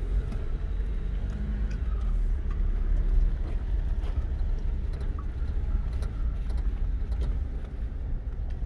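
Off-road vehicle moving over a rough track: a steady low engine and tyre rumble with scattered clicks and knocks.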